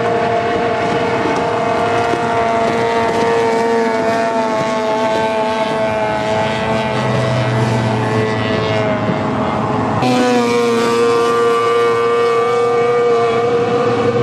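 Racing outboard motorboat engines running at high revs, a steady high-pitched whine. About ten seconds in the engine note changes abruptly and gets slightly louder, as another boat's engine takes over.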